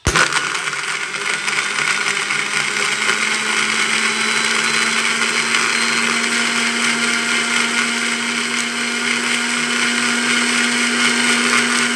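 Electric countertop blender switched on and running steadily at speed, blending ice cubes with liquid until smooth.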